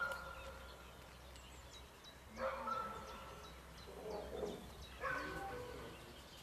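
A dog barking at a decoy in a bite suit as it guards him: a few short barks, about two and a half seconds in, again around four seconds and at five seconds.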